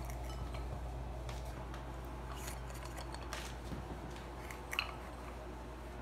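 A few faint clicks and light clinks as the fan's light kit is handled, its glass shades and bulbs touched, over a steady low hum.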